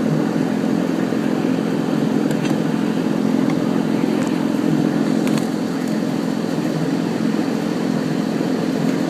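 Steady mechanical hum of a machine running, with a couple of faint clicks.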